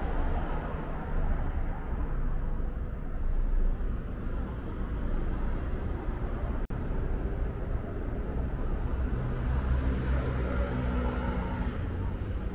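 Road traffic: a steady low rumble of passing cars and their engines. It cuts out for an instant about halfway through.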